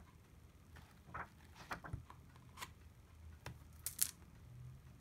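Paper pages of a book being turned by hand, a short rustle every second or so, then the book being closed with a sharper, louder slap about four seconds in.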